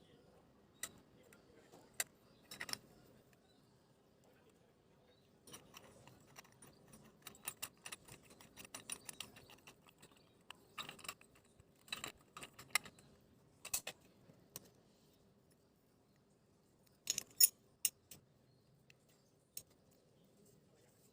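Aluminium parts of a Bialetti Brikka moka pot clinking and clattering as they are handled and taken apart: scattered light clicks and knocks, busiest in the middle, with a few louder clinks near the end.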